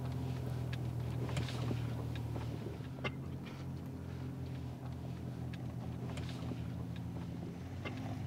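2024 Ford Ranger Raptor's turbocharged V6 running steadily at low revs in four-low as the truck crawls up a loose-rock slope. Scattered sharp clicks and cracks come from rocks under the tyres.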